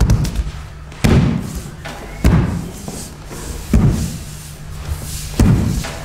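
A series of four heavy thuds about a second and a half apart, each with a short echoing tail, over a low steady hum.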